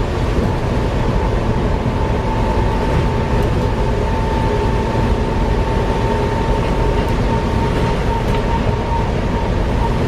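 Volvo B7TL double-decker bus on the move: a steady rumble with a steady whine over it and a few faint ticks. The ticking is taken for a bad differential.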